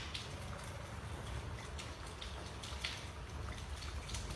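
Rain falling, with scattered drops tapping sharply at irregular intervals over a low steady rumble.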